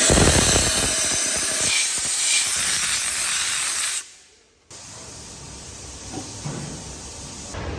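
A loud, steady hiss, like air or spray rushing out, for about four seconds, then it fades away quickly.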